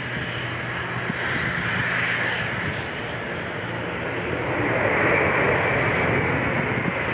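Jet airliner's engines, a steady rushing noise with a low hum that grows louder about five seconds in.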